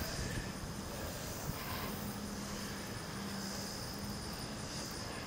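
Steady outdoor ambience: a constant high insect drone over a low hum that comes and goes, with no distinct event.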